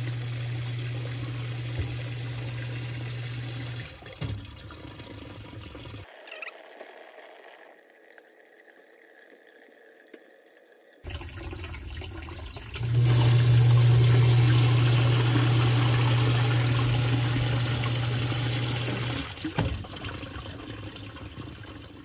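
Zoeller submersible sump pump cycling on its float switch: a steady motor hum with water rushing through it, shutting off about four seconds in. After a quieter pause it kicks on again about thirteen seconds in, pumping louder for about six seconds before shutting off. It is working automatically as it should with its cleaned, newly replaced switch.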